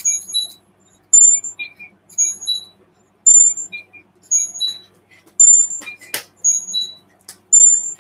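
High-pitched beeps in a short run of several pitches, repeating about once a second. There is one sharp knock about six seconds in.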